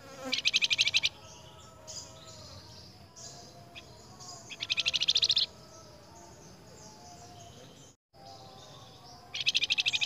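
Flamboyan songbirds calling back and forth: three loud bursts of rapid, evenly repeated high notes, each about a second long, spaced roughly four to five seconds apart, over faint chirping.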